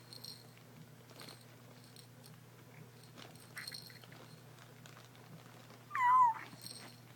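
A cat gives one short meow about six seconds in, after a few faint soft clicks and rustles.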